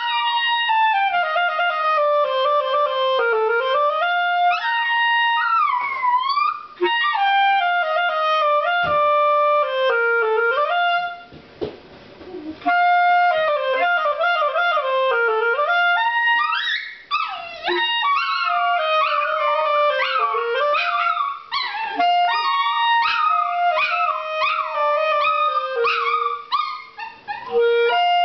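Clarinet playing a slow melody in held notes while a Chihuahua howls along with it, its howls gliding up and down over the notes. The playing stops briefly about twelve seconds in, then both start again.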